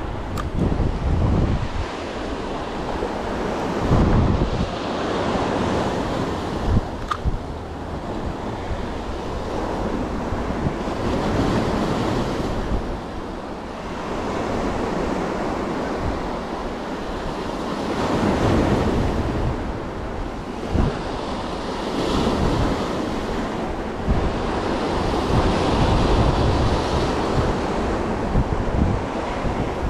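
Sea waves washing on the shore, the surf swelling and easing every several seconds, with wind buffeting the microphone in low rumbling gusts.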